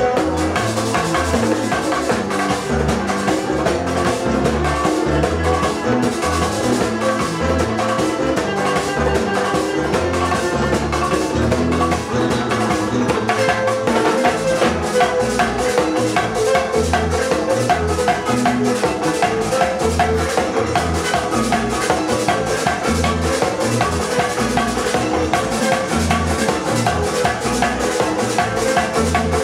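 Latin dance music with drums and percussion, playing loud and steady with a regular beat.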